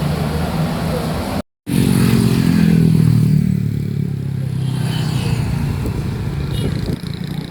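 A large bus engine accelerating past, its low drone swelling and then easing off. The sound drops out for a moment about a second and a half in.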